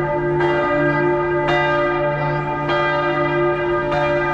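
Large tower bells ringing, a new strike about every 1.2 s, with the tones of several bells ringing on over each other.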